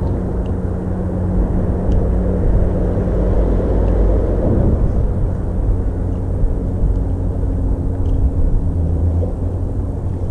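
Steady low rumble with a low, even hum of engine noise.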